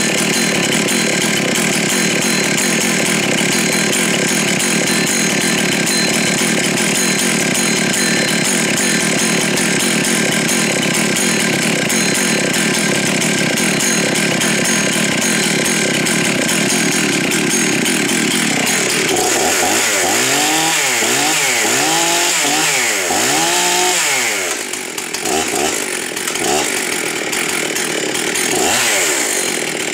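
Husqvarna 266 XP two-stroke chainsaw cutting wood at steady full throttle for about nineteen seconds. Then, off the cut, it revs up and down in quick repeated swells, about one and a half a second. Near the end come a few shorter, uneven revs.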